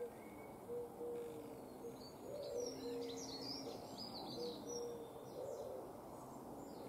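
Faint birdsong: quick high chirping and twittering of small birds through the middle, over a low call held on one note that comes several times.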